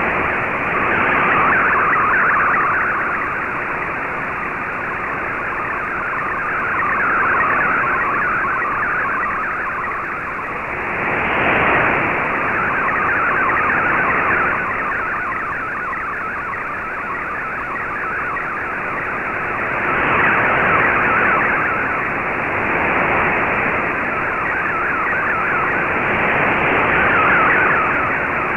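Shortwave Radiogram's MFSK64 digital picture transmission heard through an Icom IC-R8600 receiver in AM mode: a dense, hissing warble of rapidly shifting tones over shortwave static. Its strength swells and sags every few seconds with signal fading.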